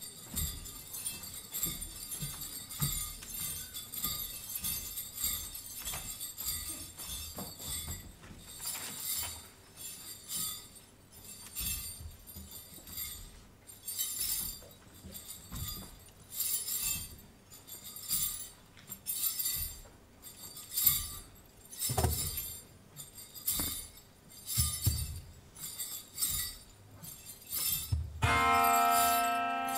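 Small bells jingling in short, uneven shakes with an occasional low thump. Near the end, a held instrumental note with a full set of overtones comes in and turns it into music.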